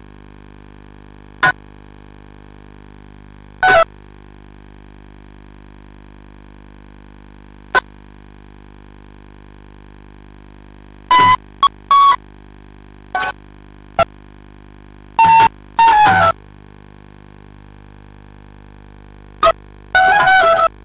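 Bamboo flute (bansuri) played through a microphone and PA: short notes and brief phrases, some sliding in pitch, separated by pauses, with a longer phrase near the end. A steady low hum runs underneath.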